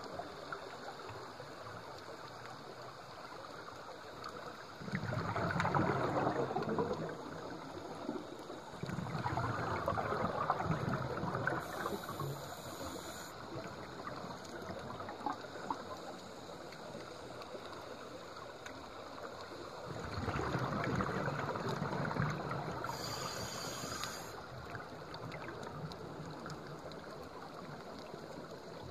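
Underwater sound of a scuba diver breathing through a regulator: three bursts of exhaled bubbles rumbling and crackling past the camera, each a couple of seconds long, with two short high hisses from the regulator and a steady water hiss between breaths.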